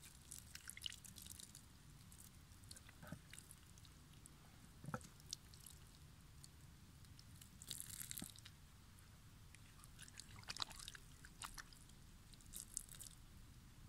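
Faint trickle and spatter of water poured over hands while a red onion is rinsed, with soft crackles and crunches from a knife cutting into the onion's skin.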